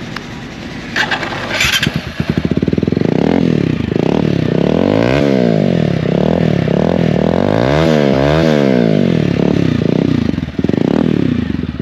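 TVS Apache RTR 200's single-cylinder engine through an aftermarket Akrapovič slip-on exhaust with the dB killer removed. It idles, then from about two seconds in it is revved hard again and again, the note rising and falling with each throttle blip. It is very loud, then settles back near the end.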